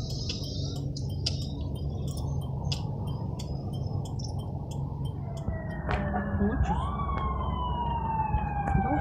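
Traffic rumbling steadily with high chirping over it. From about five and a half seconds in, the sirens of approaching fire apparatus start wailing: one sweeps up sharply, then several overlapping tones fall slowly and rise again.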